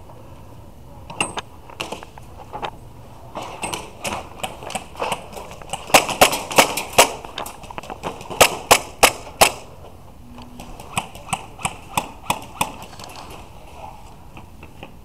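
Airsoft guns firing in an exchange: many sharp pops, some in quick strings, thickest and loudest around the middle and thinning out near the end.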